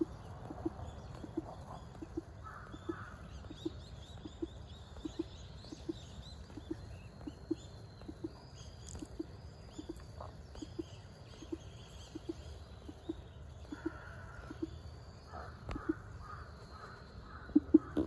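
Birds calling with scattered high chirps, and a short run of repeated calls near the end, over a soft low pulse that repeats evenly about every three-quarters of a second.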